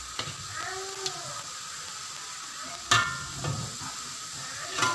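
Chopped shallots and garlic sizzling in a little hot oil as they are stirred, frying until golden and fragrant. A utensil knocks sharply against the pan with a brief ring about three seconds in and again near the end.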